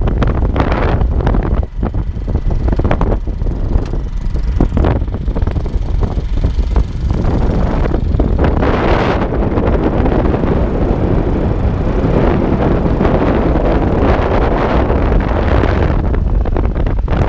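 Wind rushing over the microphone of a camera riding on a moving motorcycle, a loud, deep buffeting that comes in gusts for the first several seconds and then settles into a steadier rush.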